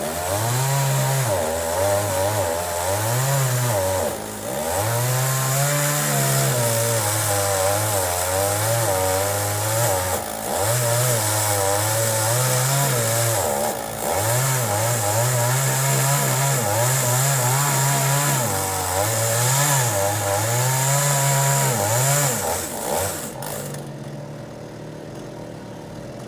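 Chainsaw running at full throttle and cutting wood, its engine note sagging again and again as the chain bites and climbing back between cuts. Near the end it drops back to idle.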